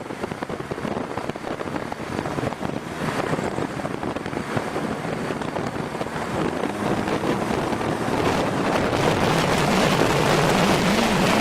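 Lowered Scion xB driving with its underside scraping and dragging on the pavement, a dense grinding noise with the engine note, growing steadily louder as the car comes closer, with wind buffeting the microphone.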